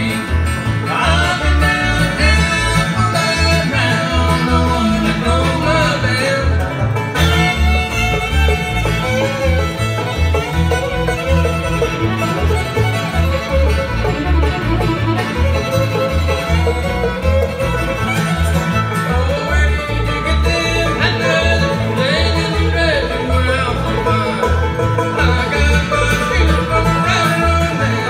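Live bluegrass band playing on banjo, acoustic guitar and upright bass, over a steady, even bass beat.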